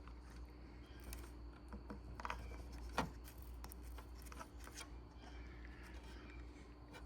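Small clicks and scraping as the opened garage door opener's parts are handled, with one sharper click about three seconds in, over a low steady hum.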